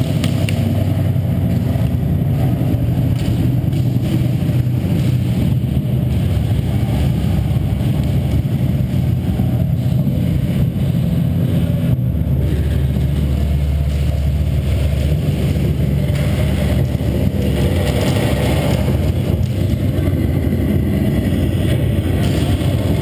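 A steady, loud, low mechanical drone with no shots.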